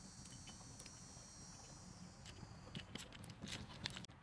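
Folding hex key turning a screw into the machined aluminium parts of a slingshot: small metallic clicks and ticks, coming in a quick run in the second half.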